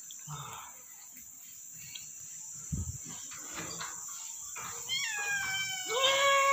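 White domestic cat meowing twice near the end, the second meow louder, rising and then held. A single dull thump about three seconds in.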